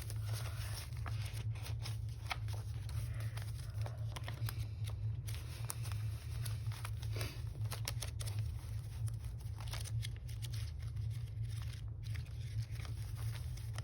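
Paper bills being handled and leafed through, with scattered crisp rustles and flicks over a steady low hum.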